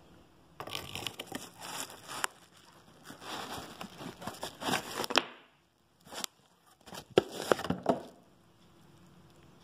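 Cardboard box and plastic wrapping rustling and crinkling as a lamp is handled and drawn out of its box, in two stretches with a few sharp clicks.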